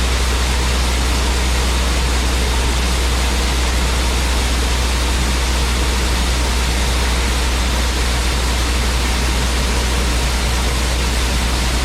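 Grain-handling machinery at a grain bin running steadily while a load of soybeans is unloaded: a constant low hum under an even rushing hiss, with no change throughout.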